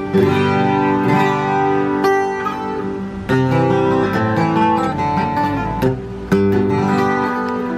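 A Takamine JJ twelve-string acoustic guitar played, with ringing strummed chords and picked runs and sharp fresh strums about three and six seconds in. The guitar is freshly set up with very low action and plays cleanly with no fret buzz.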